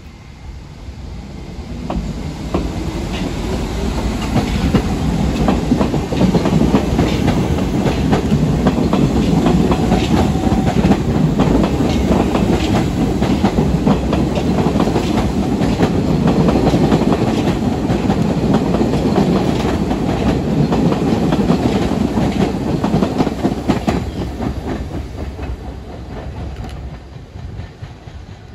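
Two R68A New York City subway trains departing side by side on parallel tracks and passing close by: rapid clickety-clack of wheels over rail joints over running noise. It builds over the first few seconds, stays loud for about twenty seconds, then fades as the trains pull away.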